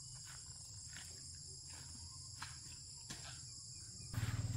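Steady high-pitched chorus of insects over a low hum, with a few faint clicks. Near the end a louder, pulsing low hum comes in.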